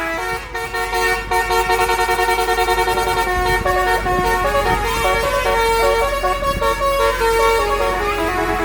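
Bus telolet musical air horn of the Basuri type playing a tune: several tones sound together and step from note to note, with no gap between notes. A steady low rumble runs underneath.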